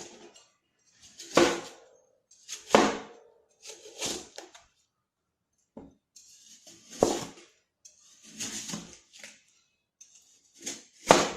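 A knife hacking and crunching into a watermelon frozen solid like ice, about six separate strokes with pauses between, each a short grinding crunch.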